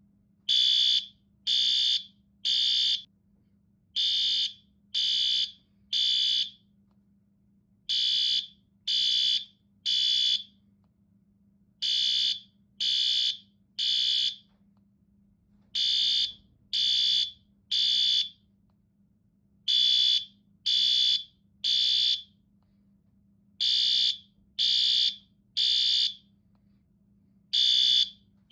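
Fire alarm sounding the temporal-three evacuation pattern: high-pitched beeps in groups of three, about one a second, with a longer pause between groups, repeating steadily.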